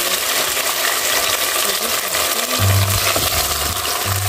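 Blended vegetable puree pouring from a blender jug into hot olive oil in a pot, sizzling and frying. Background music with low bass notes comes in a little over halfway through.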